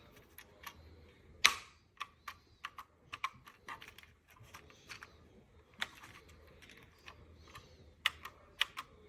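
Plastic travel plug adapter being handled: irregular light clicks and taps, with one louder knock about one and a half seconds in and a quick run of clicks near the end.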